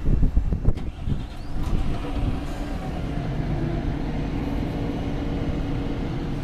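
Volvo B8RLE bus's rear-mounted six-cylinder diesel engine just started, running unevenly with a sharp click in the first second or so, then settling into a steady idle.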